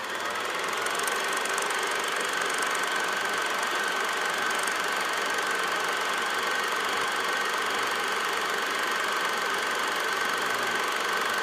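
Film projector running: a steady, rapid mechanical clatter with a steady high tone through it. It fades in at the start and stops abruptly at the end.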